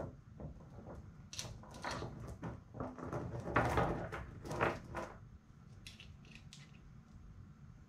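A loose chainsaw chain clinking and rattling as it is handled, with scattered small clicks and knocks against a wooden tabletop. The handling is busiest in the first five seconds, then thins to a few faint ticks.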